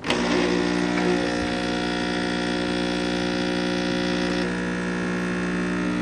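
Home espresso machine switched on with a button press, its pump starting at once with a steady buzz as it runs liquid through the portafilter into a mug. About four and a half seconds in the buzz turns slightly duller.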